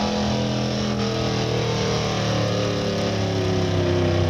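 A stock pickup truck's engine running hard at full throttle while pulling a weight-transfer sled. Its pitch slides slowly downward from about a second in as the sled's load builds and pulls the engine speed down.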